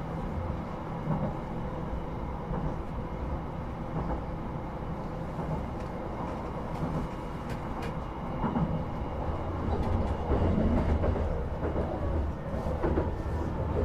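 Train car interior while the train is running: a steady low rumble with wheel and rail noise, growing louder from about two-thirds of the way through.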